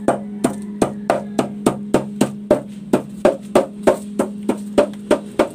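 Background music: a steady percussive beat of about three and a half knocks a second over a held low tone.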